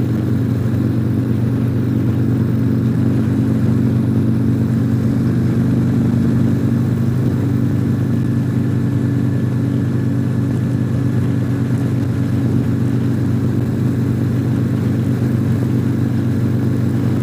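Harley-Davidson Tri-Glide trike's V-twin engine running steadily at highway cruising speed, a constant low drone with road and wind hiss above it.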